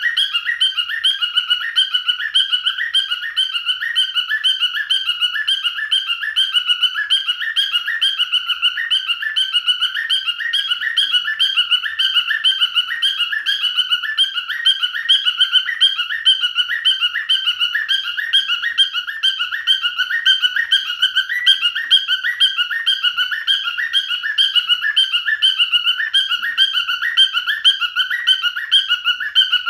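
Male cockatiel chirping in a fast, unbroken run of short repeated chirps.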